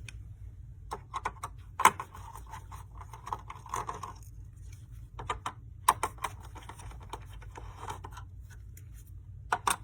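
Irregular clicks, taps and short scrapes of plastic and metal computer parts being handled and worked apart, with a sharp click about two seconds in and another about six seconds in.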